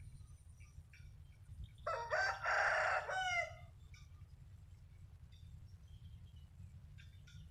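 A rooster crows once, a single call of about a second and a half that ends in falling notes. Faint bird chirps sound before and after it.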